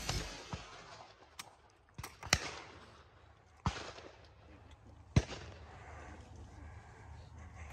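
Several separate shotgun shots from clay shooting, sharp cracks each with a short echo, spaced one to two seconds apart.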